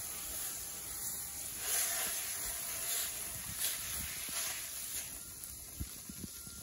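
Paper towel scrubbing across the wet, hot steel top of a Blackstone griddle, with water hissing off the plate; a few rubbing strokes, growing quieter after about five seconds.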